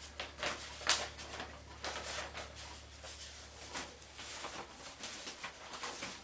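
Large sheets of an old newspaper rustling and crinkling as they are lowered and leafed through: a run of short, irregular rustles, the sharpest about a second in, over a faint steady low hum.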